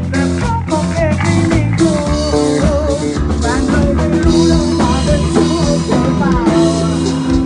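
Band music: a song played on drum kit and guitar, with a singing voice carrying the melody over a steady beat.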